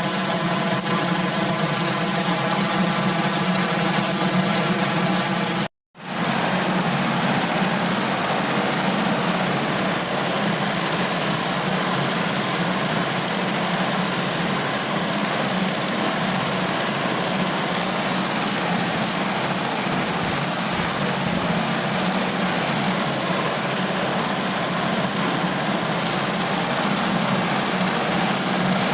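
Steady rain falling on a car roof, heard from inside the car as an even hiss. Over the first few seconds a steady hum with many even pitch lines runs under the rain. The sound drops out briefly about six seconds in, then the rain resumes on its own.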